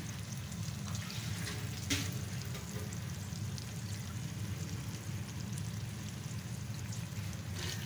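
Hot mustard oil sizzling steadily in a metal pot around freshly added chopped tomatoes and ground spices, with one brief click about two seconds in.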